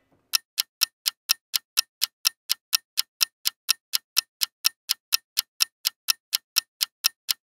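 Clock ticking, a steady even run of sharp ticks at about four a second with dead silence between them, typical of a ticking-clock sound effect edited in to mark time passing.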